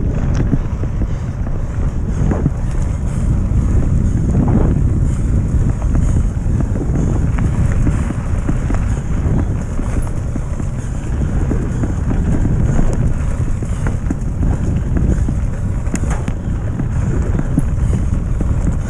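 Wind buffeting the camera microphone on a mountain bike riding fast on a dirt forest track, a steady low rumble with tyre noise and a few brief knocks from bumps.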